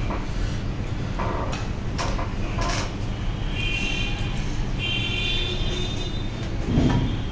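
Steady low hum with a few light clicks and taps from a phone's circuit board and frame being handled. A brief high thin tone sounds twice in the middle, and a dull knock comes near the end.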